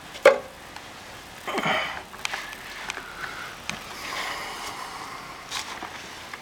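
Handheld camera and movement noise: a sharp click or knock about a quarter second in, a short breathy rush about a second and a half in, then light clicks and rustling.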